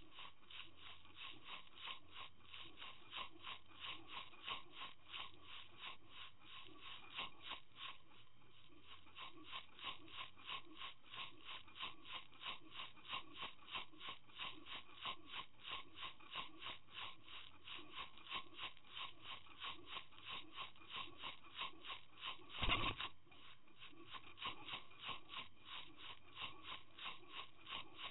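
Rapid, even ticking heard underwater through a camera towed on a trolling line, about three to four ticks a second, with one louder knock about three-quarters of the way through.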